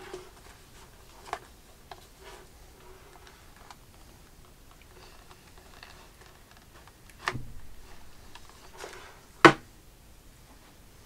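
Pocket knife slitting the seal on a cardboard tablet box, with light scrapes, small clicks and rustles of the box being turned and handled. There is a sharp knock with a short scrape about seven seconds in, and a louder single knock about nine and a half seconds in.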